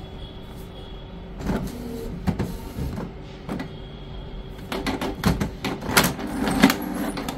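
Canon G-series ink-tank inkjet printer running as it prints the back side of a PVC softcard. Short motor whirs begin about a second and a half in, followed by a run of clicks and knocks that is loudest near the end.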